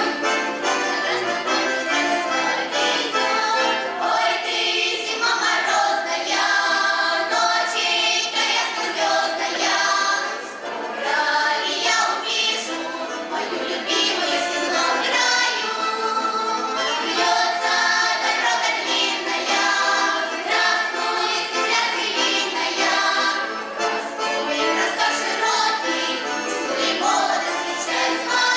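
Children's folk ensemble singing a Russian folk song together in chorus, continuously and at full voice.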